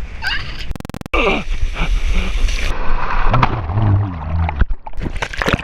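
Wind buffeting the microphone and water splashing, with brief shouted voices.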